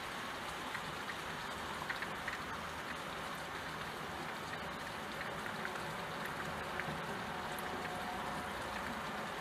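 Steady rain, with scattered single drops ticking against window glass.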